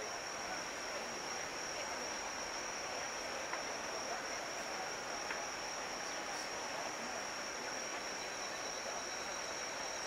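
Steady high-pitched singing of night insects, one unbroken tone over an even background hiss.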